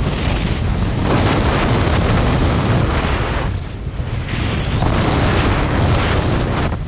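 Heavy wind buffeting the microphone over rushing water while kitesurfing, coming in two long surges with a short lull about halfway.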